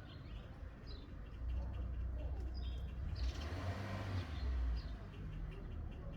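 Small birds chirping, with short repeated calls, over a low rumble that swells through the middle and fades near the end.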